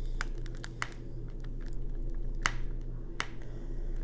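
Irregular small clicks and taps from diamond painting, a drill pen pressing resin drills onto the canvas, with two sharper clicks in the second half, over a low steady hum.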